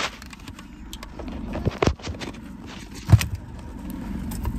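Handling noise from a phone being moved about inside a car: a few knocks and bumps, the loudest a little after three seconds in, over a steady low rumble.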